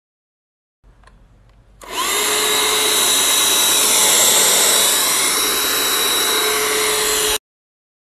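Kadonio KC-VC96 cordless stick vacuum cleaner switched on: a few faint clicks, then the motor spins up with a brief rising whine and runs steadily with a strong rush of air, stopping abruptly about five and a half seconds later.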